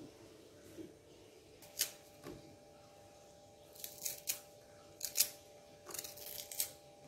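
Kitchen knife cutting through fresh lemongrass stalks: a series of short, sharp, crisp cuts, one about two seconds in and then several in quick succession over the last three seconds. A faint steady hum runs underneath.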